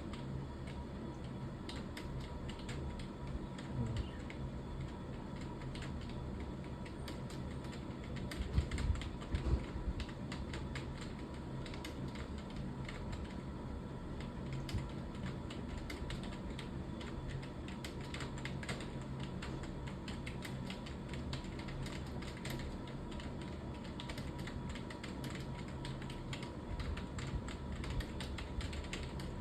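Computer keyboard typed on steadily and fast, a continuous irregular patter of key clicks, with a few louder knocks about nine seconds in.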